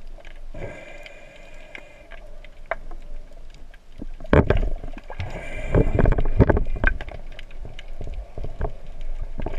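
Underwater sound in shallow, wave-tossed sea water: the swell surges in low, heavy rushes from about four seconds in, with many sharp clicks and knocks throughout and a faint steady whine that comes and goes twice.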